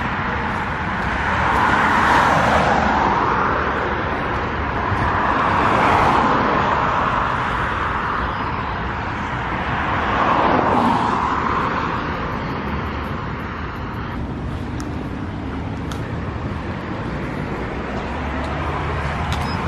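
Cars passing one after another on a busy street: three swells of tyre and engine noise about four seconds apart, each rising and fading, then a steadier traffic hum.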